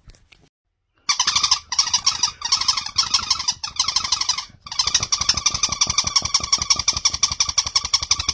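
A toy ball sounding a fast, pulsing high squeak, many pulses a second, with a few brief breaks.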